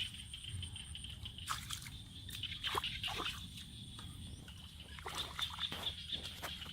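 Shallow water sloshing and splashing in irregular bursts, as hands and bodies move through it while catching fish by hand, over a steady high-pitched drone.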